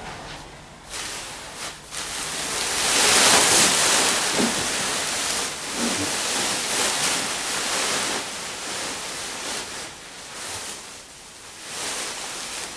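A rushing, hissing noise that rises and falls, loudest about three to five seconds in.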